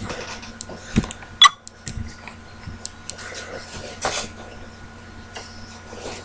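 Small clicks and clatter of objects being handled, with a thump about a second in and a very short, sharp high-pitched sound about half a second later, over a faint steady electrical hum.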